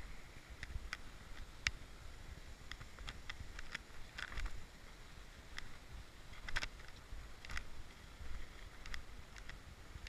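Footsteps on a rocky dirt trail: irregular scuffs and crunches of shoes on stone and soil, over a steady low rumble on the microphone.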